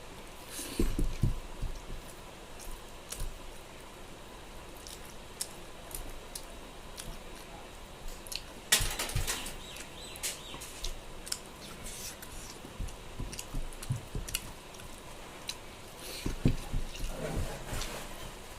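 Close-miked eating of pork and rice: wet chewing and mouth smacking with scattered sharp clicks. Louder bursts come about a second in, around halfway, and again near the end.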